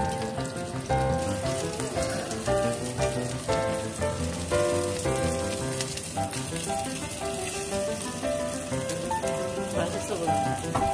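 Breaded chicken cutlets pan-frying in olive oil, a steady sizzle with fine crackles, under background music with a clear melody.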